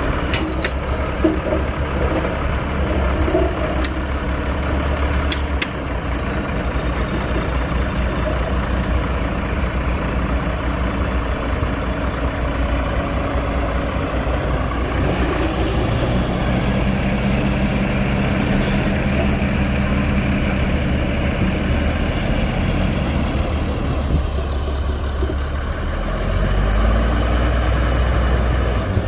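Heavy diesel earthmoving machinery running steadily under load, with a few sharp metallic clanks in the first six seconds and the engine note shifting lower from about sixteen seconds in.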